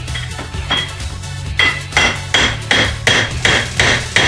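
Hammer striking a socket set into a flywheel's pilot bearing to drive out the stuck bearing. A light tap comes first, then, from about a second and a half in, eight sharp metallic strikes with a ringing tone at roughly three a second.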